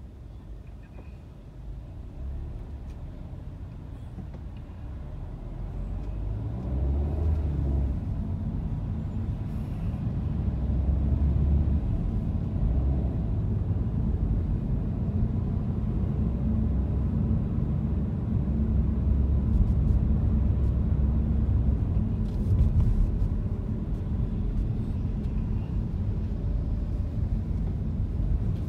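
Car driving in city traffic: a low engine and tyre rumble that grows louder over the first several seconds as the car pulls away and gathers speed, then holds steady.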